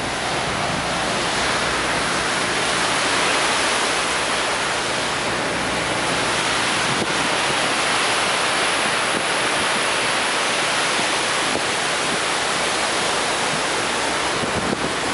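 Steady rush of a cargo ship's churning wake and the open sea, mixed with wind buffeting the microphone.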